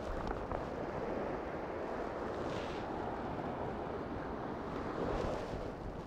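Steady rushing of sea surf and wind, swelling about two and a half seconds in and again near five seconds.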